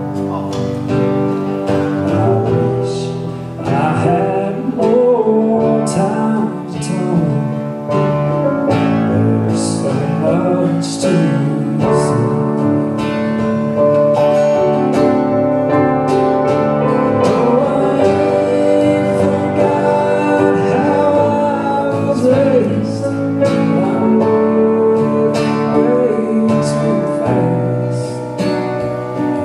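A live band plays a slow song on guitar, keyboard and drums, with a singing voice over it.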